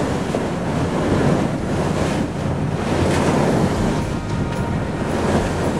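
Steady wind buffeting the microphone over the rush of sea water along the hull of a moving boat.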